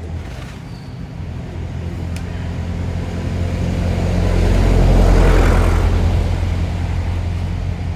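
A motor vehicle passing close by: a steady low engine hum with a rush of noise that swells to a peak a little past the middle and then fades away.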